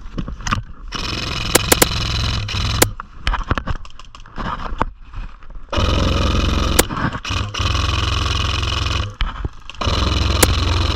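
Airsoft electric gun firing long full-auto bursts, its motor and gearbox buzzing at a rapid rate: three bursts of about two, three and a half and one and a half seconds, with a few sharp clicks in between.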